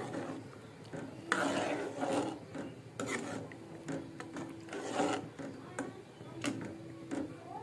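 A spoon scraping and sloshing through thick dal with meat in a metal pan as it is stirred, in several irregular strokes.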